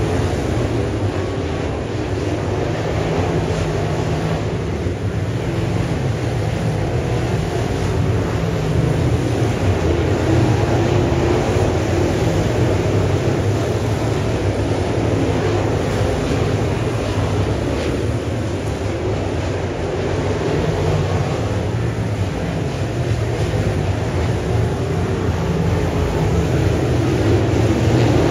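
A field of crate late model dirt race cars running at speed, their GM 604 small-block V8 engines making a dense, steady roar that swells and eases slightly as the cars come around.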